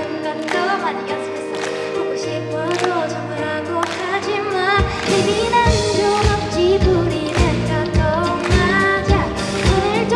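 Live pop song: a woman sings a melody into a microphone over band accompaniment with a light regular beat. About five seconds in, a heavier beat with deep bass comes in and the sound fills out.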